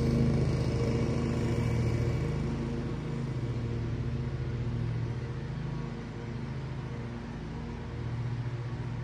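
Lawn mower's small petrol engine running steadily at a constant pitch, growing fainter over the first six seconds or so.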